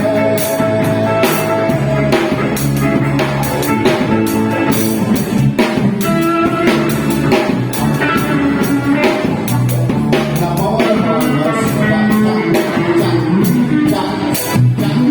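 Band playing an instrumental passage with no singing: guitar over a drum kit keeping a steady beat.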